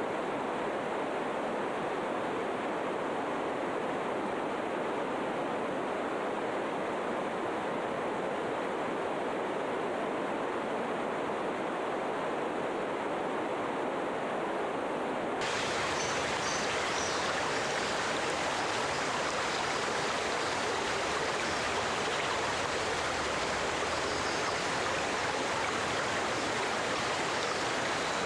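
Steady rushing of water, an even hiss-like noise with no distinct events. About halfway through it changes abruptly to a fuller, brighter sound, as if the track were spliced.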